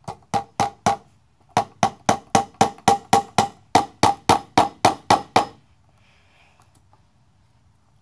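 Claw hammer driving a plastic cable staple over electrical cable into a wooden board: about twenty sharp strikes, about four a second, with a short pause about a second in, stopping about five and a half seconds in.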